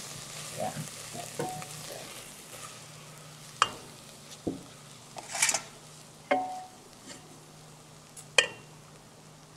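Wooden spatula stirring dry ground spices and curry leaves frying in a stainless steel pot, a soft scraping sizzle with several sharp knocks of the spatula against the pot. The spice mix is frying with too little oil. A steady low hum runs underneath.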